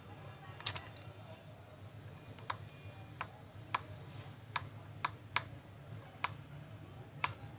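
Light, sharp clicks and taps, about nine at irregular intervals, from a handheld metal detector's black plastic housing being handled as its cover is fitted and a screwdriver is set to a screw.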